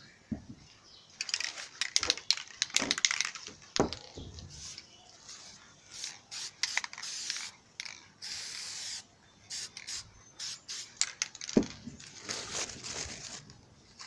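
Rustling and knocks at first, then an aerosol spray-paint can sprayed in several short hisses, one held for about a second. Near the end comes crinkling of crumpled newspaper being pressed onto the wet paint.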